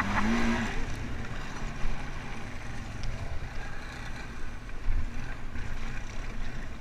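Quad bike (ATV) engine running with a steady low rumble as the quad rides over a stony riverbank.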